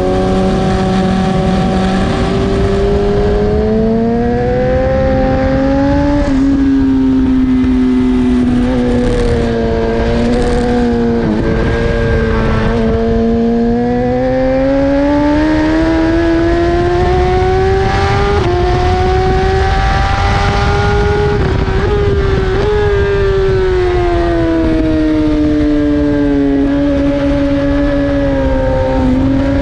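BMW S1000RR's inline-four racing engine heard from on board at speed, its pitch climbing and falling slowly as the revs rise and drop through the lap, with a few quick steps in pitch at gear changes. Heavy wind rush over the microphone runs underneath.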